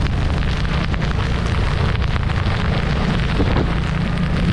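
Motorcycle engine running steadily while riding in rain, mixed with the hiss of tyres on a wet road, rain and wind on the microphone.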